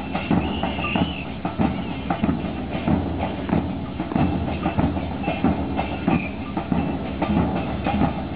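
Murga band percussion: bass drums with cymbals mounted on top and other drums, beaten together in a steady driving rhythm.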